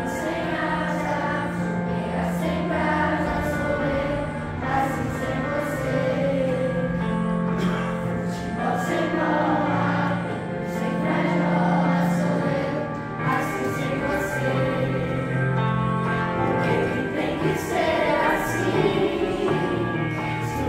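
Children's choir singing, accompanied by an electronic keyboard holding steady low chords underneath.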